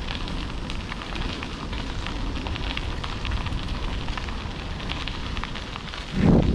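Bicycle tyres rolling over a crushed-gravel trail, a steady crunching crackle of small stones under a low rumble. About six seconds in, wind buffeting on the action-camera microphone turns loud.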